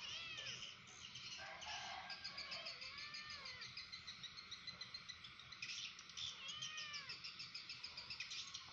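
A cat meowing softly a few times, each a short call that rises and falls, over birds chirping and insects trilling in the background.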